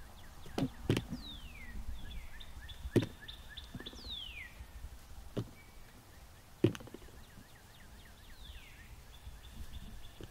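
Songbirds singing outdoors: three whistles sliding downward and a fast ticking trill. Five sharp knocks cut through, two of them loud, about three seconds and nearly seven seconds in.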